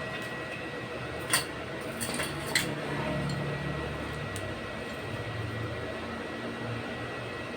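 A few light clinks of hard objects, one a little over a second in and a short cluster about two seconds in, over a steady low hum.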